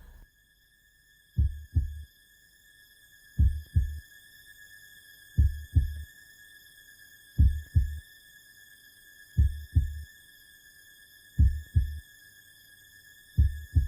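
Slow heartbeat: a pair of low thumps, lub-dub, every two seconds, over a steady high-pitched tone.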